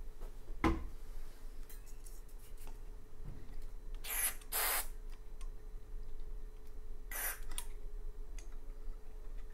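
Aerosol contact cleaner sprayed in short hisses through its thin extension straw: two quick bursts about four seconds in and another near seven seconds. A single knock comes shortly after the start.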